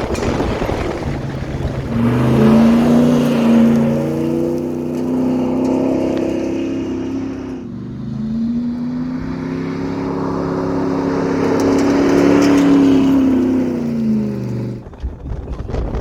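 A motor vehicle's engine heard in two long runs, one after the other. Each time the pitch climbs, holds, then drops away.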